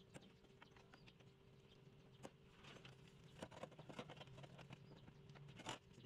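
Near silence with faint, scattered clicks and light taps from hands working the fuel pump's wiring connector and metal access cover, over a faint steady hum.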